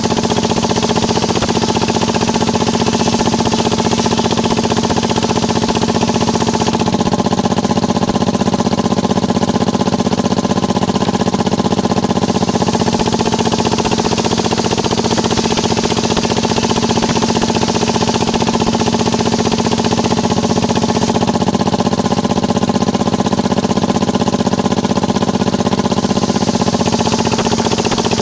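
Small engine-driven circular sawmill (serkel) running steadily at constant speed, with a hiss above it that grows and fades a few times.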